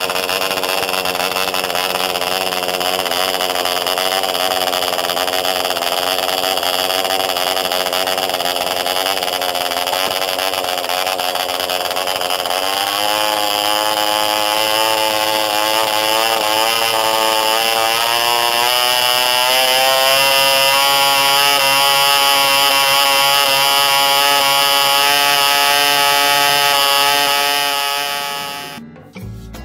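Vintage Spanish model airplane engine, a small single-cylinder engine, running at high speed on a test stand with a high buzzing whine. About halfway through its pitch climbs steadily as it speeds up, then holds; the sound fades away near the end.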